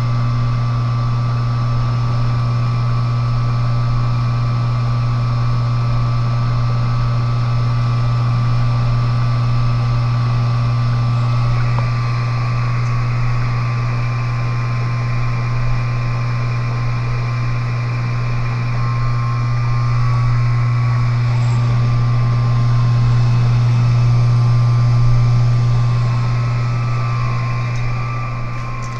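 Pump of a home-built biodiesel processor running with a steady low hum, drawing catalyst solution from a jug into the waste oil to mix.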